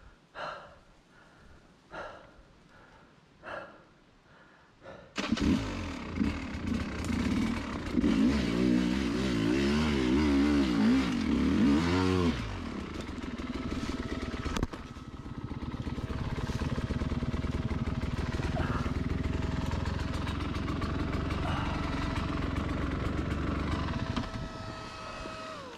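Dirt bike engine starting about five seconds in after a few short knocks, revved up and down, then settling to a steady idle.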